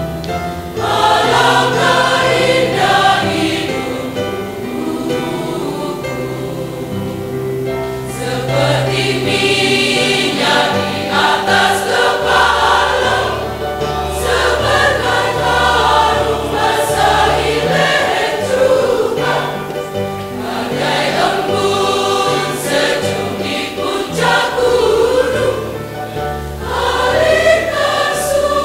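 Mixed choir singing a Christian hymn in Javanese, many voices together in sustained sung phrases.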